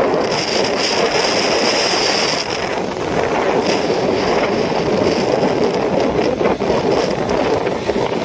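Steady rushing noise of a moving vehicle, with wind buffeting the microphone and a high hiss over the first two seconds or so.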